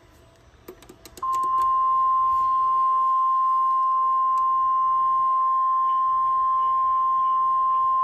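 A few quick clicks, then about a second in the NOAA Weather Radio 1050 Hz warning alarm tone starts: one steady, loud, unbroken tone. It signals that a warning broadcast, here a severe thunderstorm warning, is about to follow.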